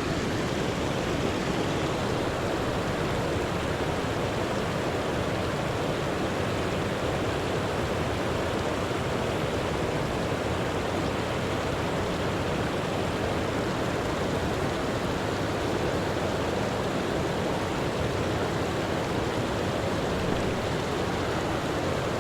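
Steady rushing of a shallow stream's water flowing over rocks.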